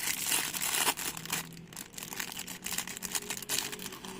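Crinkling rustle and small plastic clicks from a fuel pump's filter being handled and pushed onto the pump, densest in the first second, then scattered ticks.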